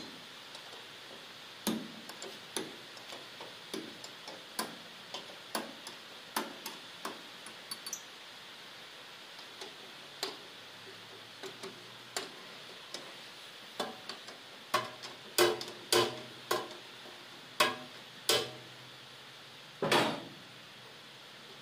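Irregular metallic clinks and taps of a hand tool working on bolts and steel parts inside a combine harvester's body, each with a short ring. They come sparsely at first, then thicker and louder after about two thirds of the way in, with one loudest clank near the end.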